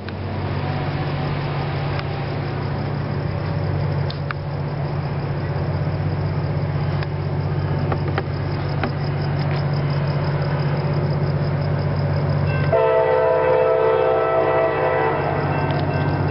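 CSX GP39-2 diesel locomotive running with a steady low engine drone. About two-thirds of the way in, its air horn sounds one long chord of several tones lasting roughly three seconds.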